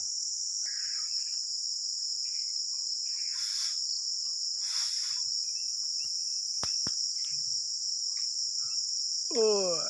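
Steady high-pitched drone of an insect chorus in the plantation, with a few faint rustles and two sharp clicks about seven seconds in.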